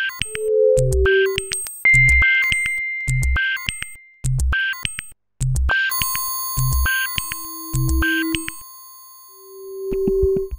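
Electronic intro jingle: short synthesized bleeps and chirps over a low pulse that comes about once a second, with held pure tones that linger. The sound cuts out briefly a little past the middle, then returns with a cluster of high held tones.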